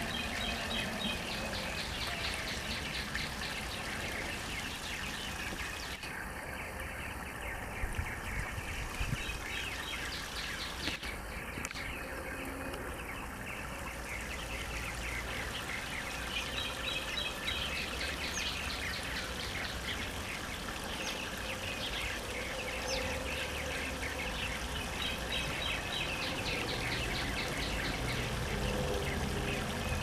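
Water trickling steadily over a small stacked-rock waterfall, with songbirds singing over it; a fast series of high repeated notes comes several times.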